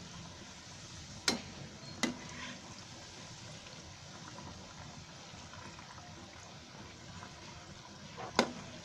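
Pea-and-paneer kababs deep-frying in a kadai of hot oil, a steady sizzle and bubble. A perforated metal slotted spoon clinks sharply against the pan three times: twice in the first couple of seconds and once near the end.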